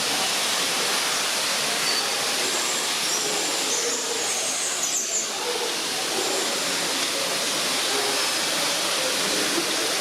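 Steady rushing hiss like falling water or misting in a tropical bird house, with a low murmur of distant voices. A few brief high-pitched bird chirps come about halfway through.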